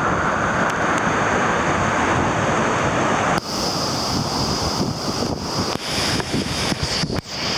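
Loud, steady rushing of a waterfall swollen by a flash flood. About three and a half seconds in the sound changes abruptly, with wind buffeting and handling knocks on the microphone.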